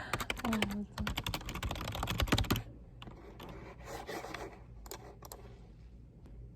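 Typing on a computer keyboard: a quick run of keystrokes for about two and a half seconds, then only a few scattered key presses.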